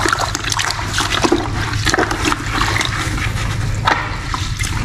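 A tiling sponge being rinsed by hand in a bucket of water: water sloshing, splashing and dribbling as it is worked about.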